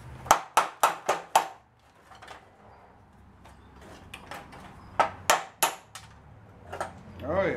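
Hammer striking the steel front panel of a truck bed, knocking old body filler loose: five quick blows in about a second near the start, then three more about five seconds in.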